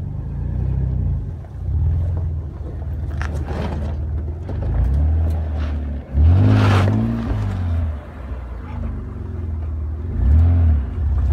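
Audi A4 engine pulling at low revs as the car crawls over rocks, revving up and back down about six seconds in and briefly again near the end.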